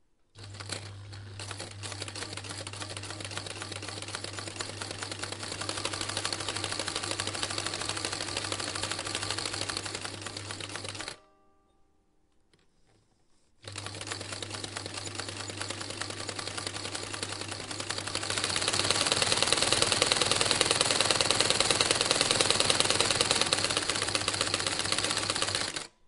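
An old Bosch machine running with a fast, even mechanical clatter over a steady electric-motor hum. It starts, runs faster and louder after a few seconds, and stops about 11 seconds in. A couple of seconds later it starts again, speeds up and gets louder again, and stops at the end.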